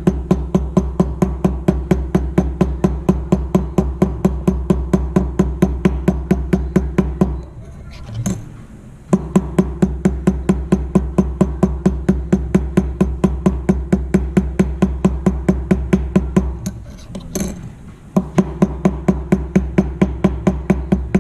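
A round-headed hammer lightly and rapidly tapping around the rim of a tube rivet to spread it, about four to five taps a second, with two short pauses.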